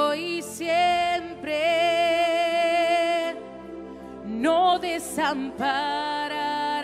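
Slow Christian worship song: a singer holds long notes with vibrato in two phrases over steady sustained accompaniment.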